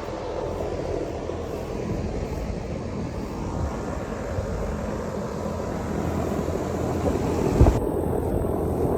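Lennox Elite 5-ton (60,000 BTU) central air conditioner condenser running: a steady rush of air from the outdoor fan over a low hum, slowly growing louder, with a brief low thump near the end.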